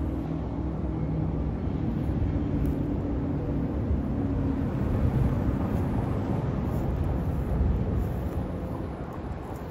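Steady low rumble of a distant train. Faint low tones fade out over the first few seconds, and the rumble eases slightly near the end.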